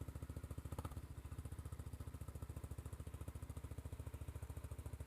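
ATV engine idling steadily, an even, rapid low pulsing.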